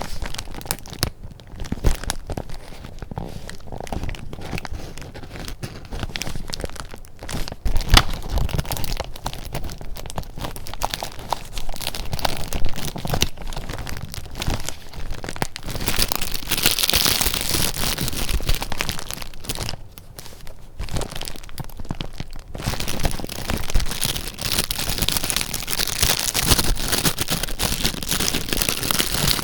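Paper being handled: rustling and crinkling with many small clicks, turning into heavier, denser crinkling from about 16 seconds in and again from about 22 seconds in.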